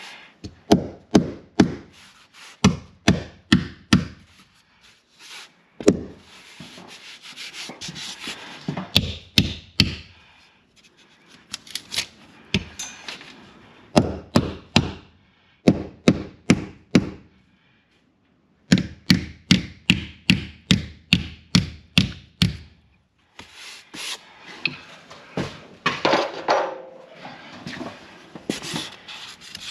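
Claw hammer tapping plastic insulation cap fasteners into rigid foam board, in runs of quick light taps, driving in caps that stand proud of the surface. Near the end, a knife scrapes and cuts along a bead of dried spray foam.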